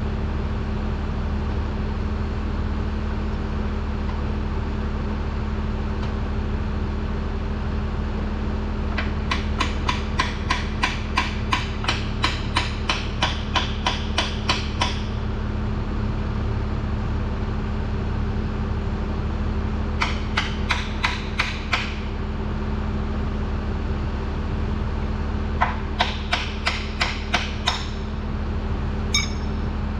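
Runs of sharp metal-on-metal taps from hand tool work on a heavy truck transmission case, evenly spaced at about three to four a second: a long run about nine seconds in, a short one near twenty seconds, and another near the end. Under them is a steady low hum.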